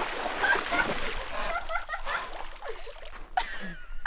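Water splashing and sloshing as a person thrashes about in shallow creek water, thinning to dripping and trickling. Brief vocal sounds come in the second half.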